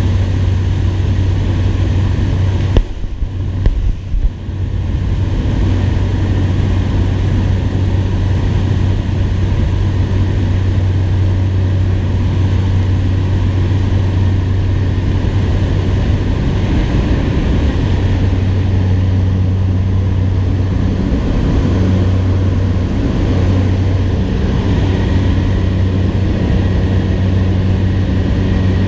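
Cessna Caravan seaplane's single turboprop engine and propeller droning steadily, heard inside the cabin during the takeoff run from the water and climb-out. A few knocks and a brief dip in the sound about three seconds in.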